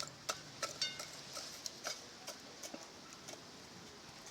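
Scattered light clicks and ticks at an uneven pace, a few of them ringing briefly like metal.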